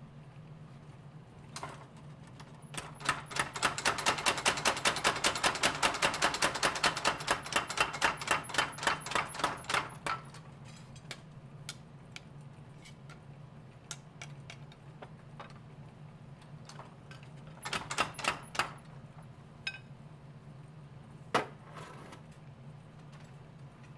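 A mechanical power hammer pounding a red-hot bar of laminated knife steel, forge-welding the layers, in rapid, even strokes of about five a second for some seven seconds. A short flurry of strikes follows later, then one sharp hit near the end, over a steady low hum.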